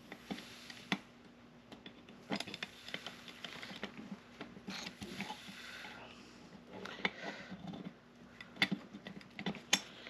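Old Diebold safe combination lock being worked by hand: irregular small metal clicks and ticks from its wheels and fence being moved, with light rustling and scraping in between.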